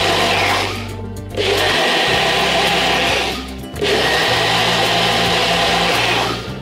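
Countertop blender running in pulses: its motor and blades whir in three runs, with short pauses about a second in and past three seconds, then stop near the end.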